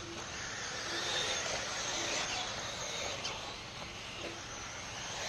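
1/8-scale electric RC buggies racing on dirt: their motors whine, rising and falling, over a steady hiss of tyres on the track, with one sharp knock about three seconds in.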